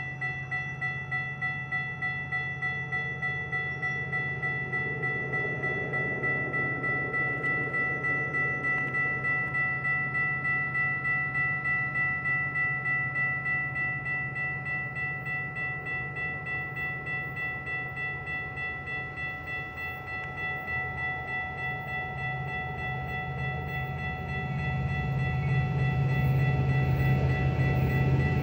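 Crossing bells ringing steadily, about two strikes a second, as a freight train led by an EMD SD70ACE diesel locomotive approaches; the locomotive's engine rumble grows louder near the end.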